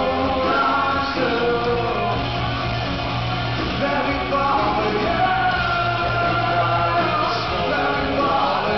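Live rock band playing with a male lead singer, sung melody over guitars, drums and a held bass note.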